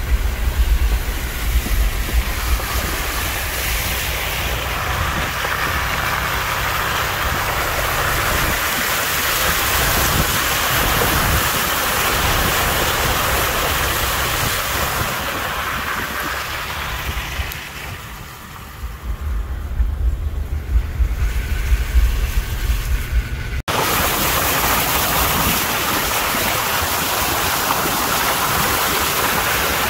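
Tyres of an off-road vehicle ploughing through water on a flooded dirt track, with a steady rush of splashing and spray. There is heavy wind rumble on the microphone, and a sudden break about three-quarters of the way through.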